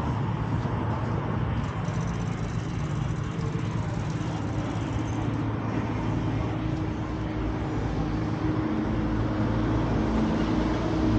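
Steady low mechanical hum over road traffic noise. About eight seconds in, an engine-like tone joins and the rumble grows louder toward the end, as of a vehicle drawing nearer.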